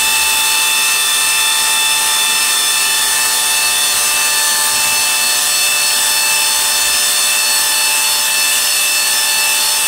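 Reeder 2"x72" belt grinder, driven by a 2 hp Hallmark AC motor through a KBAC variable-frequency drive, running steadily at full speed: a constant whir and hiss with a steady high whine. At this speed it still vibrates somewhat, which the owner thinks is an unbalanced motor or possibly the VFD.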